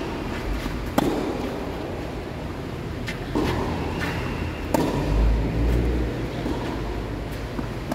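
Sharp knocks of a tennis ball being hit during play, the loudest about a second in and just before five seconds, with fainter ones between. A steady low rumble runs underneath and swells briefly after the second loud knock.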